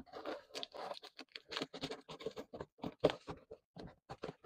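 Scissors cutting through the packing tape on a cardboard box: a run of short, irregular scratching strokes.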